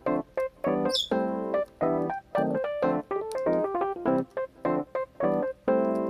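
Background piano-like keyboard music played in short, separate notes.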